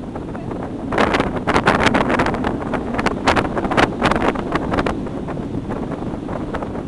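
Wind rushing over a handheld camera's microphone in paragliding flight, a loud steady roar with stronger gusts buffeting the microphone during the first five seconds or so.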